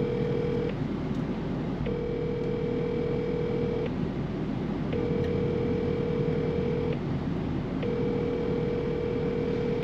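Ringback tone of an outgoing phone call heard through a smartphone's loudspeaker: a steady electronic ring about two seconds long, repeating about every three seconds, about four times, with no answer.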